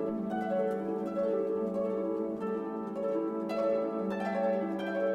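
Background music: gently plucked harp notes in an even, flowing pattern.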